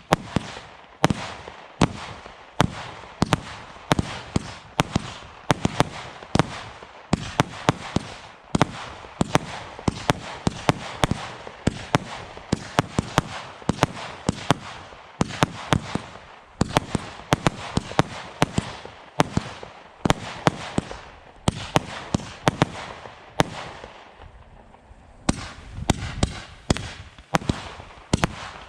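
Black Cat 'After Midnight' single-ignition aerial barrage firing: a rapid run of sharp shots and bursts, about two or three a second, easing off briefly a little past twenty seconds in before picking up again.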